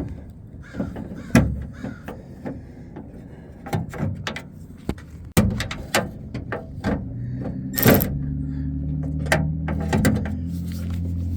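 Scattered metal clicks and knocks of hand tools working on a truck door, as the new outside door handle's nuts are run down onto its studs inside the door shell. A steady low hum comes in about halfway through.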